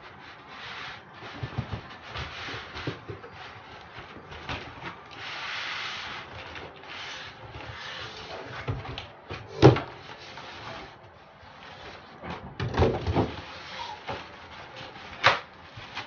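Packaging being handled as a large cardboard box is unpacked: cardboard flaps, a styrofoam packing block and plastic wrap rustling and scraping, with several sharp knocks. The loudest knock comes about ten seconds in, a cluster follows a few seconds later, and another comes near the end.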